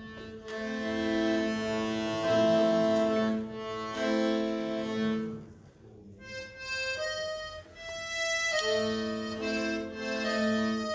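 Piano accordion playing held chords. It breaks off briefly about halfway through, then comes back with higher notes before fuller chords return.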